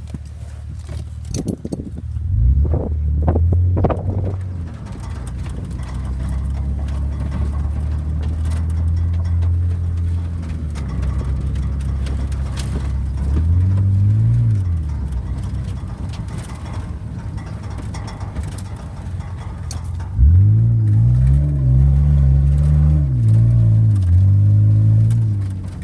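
BMW car engine running at idle and revved: one short rev about halfway through, then a series of revs over the last several seconds. A few knocks come before it settles into idle.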